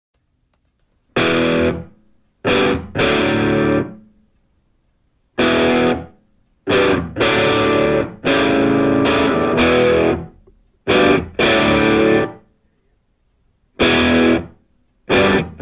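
Background music: a distorted electric guitar playing a stop-start riff, with loud chords that break off into short silences. It comes in about a second in.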